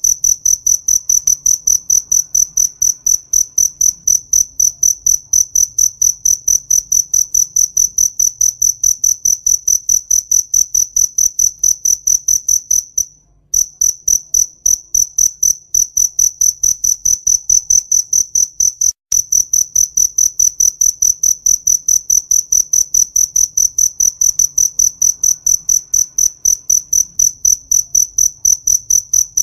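Field cricket chirping in a rapid, even stream of high-pitched pulses, briefly breaking off about halfway through before carrying on.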